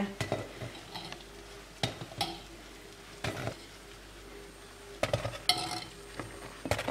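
A fork clinking irregularly against a frying pan as fried dough buns are lifted out of hot oil, over a faint sizzle of the frying oil.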